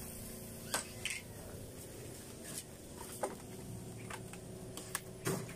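Several light, scattered knocks and clicks as painted plywood cabinet panel doors with smoked-glass insets are lifted and stacked on one another, over a faint steady background.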